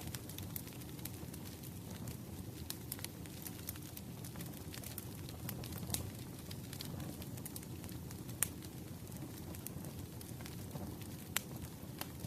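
Firewood burning in a blazing fire: a steady low rush of flames with irregular sharp crackles and pops, two louder pops about eight and eleven seconds in.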